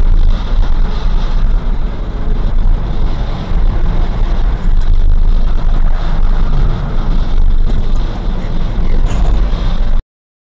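Car driving at about 55–60 km/h, heard through a dashcam inside the cabin: a steady, loud low rumble of road and engine noise with tyre hiss. It cuts off abruptly near the end.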